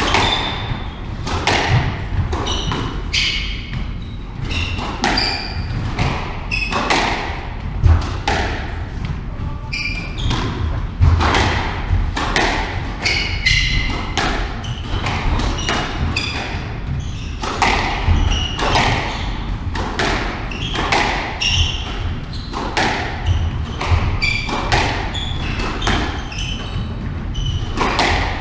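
A squash ball being hit back and forth in a long rally: a sharp smack of racket on ball and ball off the walls every second or so. Short squeaks of court shoes on the wooden floor fall between the hits.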